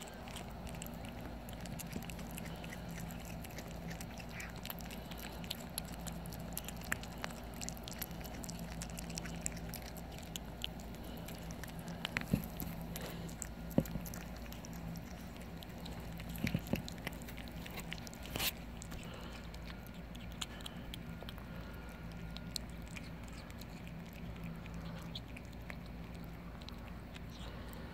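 Kittens chewing and licking raw turkey giblets up close: wet smacking with scattered sharp clicks of teeth on meat, a few louder ones about halfway through, over a steady low hum.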